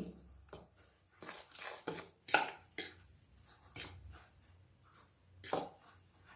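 Light, scattered clinks and taps of a spoon against a mixing bowl as sugar is spooned into the dry batter ingredients.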